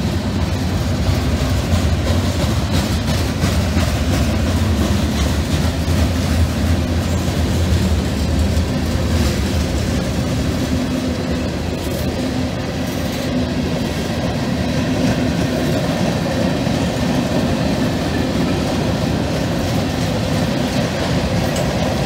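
Cars of a CSX mixed freight train (covered hoppers, tank cars and flatcars) rolling steadily past: continuous noise of steel wheels on the rails, holding level throughout.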